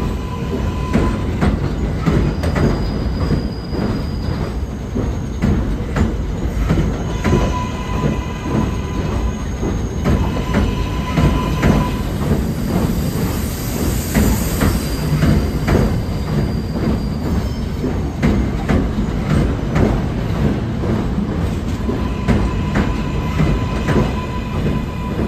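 NYC Subway R143 cars of a J train rolling past along an elevated station, with a steady rumble and rapid clicking of wheels over rail joints. A high wheel squeal comes and goes several times as the train takes the curve.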